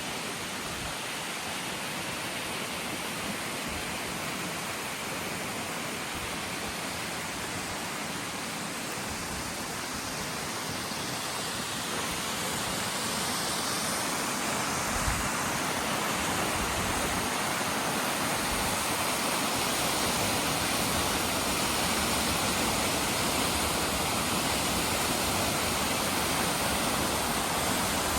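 Waterfall rushing with a steady noise that slowly grows louder, as if it is being approached. There is one brief low thump about halfway through.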